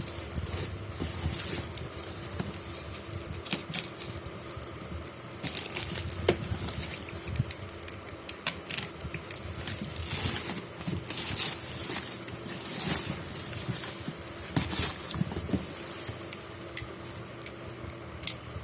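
Packaging being handled and unwrapped: irregular rustling and crinkling with many sharp clicks, over a faint steady hum.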